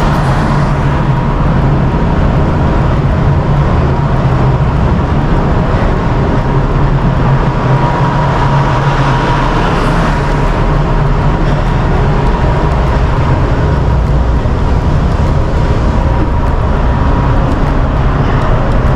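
Loud, steady drone of a ship's machinery and ventilation fans on deck: an even low hum with a thin steady whine above it.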